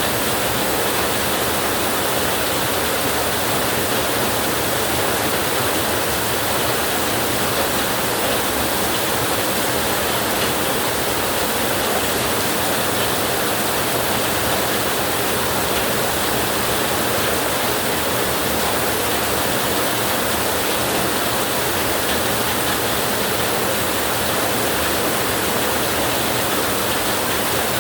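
Heavy rain on a tin roof, a dense, steady hiss that does not let up, with no thunder.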